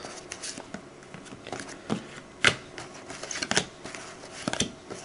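Trading cards being flipped through one by one in the hands: a string of light, irregular card-on-card clicks and slides, with a few sharper snaps.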